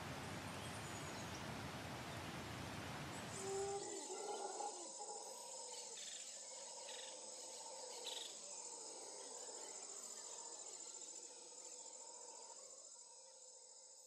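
An even hiss that gives way, a few seconds in, to a chorus of insects trilling with a high steady note, with steadier lower calls and a few short louder calls just after the change. The chorus fades out near the end.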